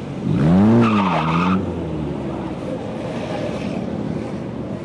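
Motorcycle engine revved with a quick throttle blip, its pitch shooting up, dropping back and rising again over about a second, then settling back to a lower running sound.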